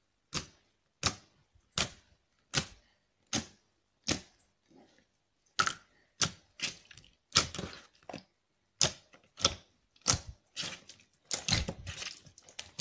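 Slime being pressed and poked, making a series of sharp popping clicks. For the first few seconds the pops come about every three-quarters of a second, then faster and more uneven towards the end.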